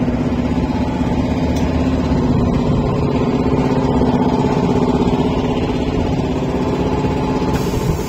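An engine idling steadily at an even pitch.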